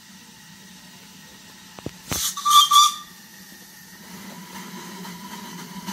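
Steam whistle of a miniature vertical-boiler steam locomotive giving one short blast about two seconds in, a hiss of steam leading into a steady whistle tone. After it the locomotive's low running sound grows louder as it comes closer.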